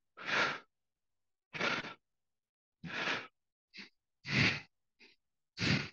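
A man breathing out forcefully through the mouth, about five sharp exhalations a little over a second apart, one with each knee lift of a marching crunch, with fainter short breaths between.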